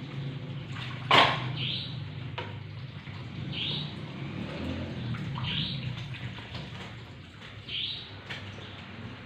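A bird chirping a short high note about every two seconds, over a steady low hum, with one sharp knock about a second in.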